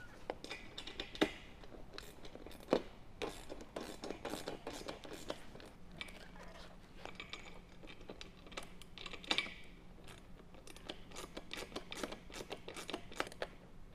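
10 mm ratcheting wrench clicking in short, irregular runs while a mounting bolt is tightened into a nylock nut, with scraping and handling noise in between.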